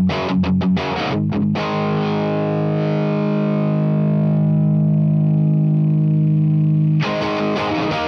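Overdriven electric guitar with P-90 pickups, played through a Satellite Neutron tube amp that has a JJ 12AT7 in the phase inverter socket in place of the stock 12AX7, pushed by an overdrive pedal. Choppy chords for the first second and a half, then one chord left ringing and fading, cut off suddenly about seven seconds in, and the chopped playing starts again.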